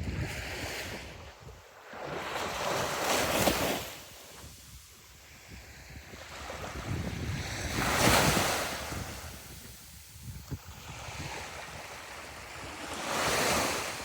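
Sea waves breaking on the shore, three surges about every five seconds, each swelling and then washing back. Wind buffets the microphone.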